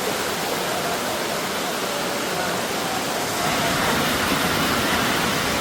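Waterfall rushing steadily, a little louder about halfway through.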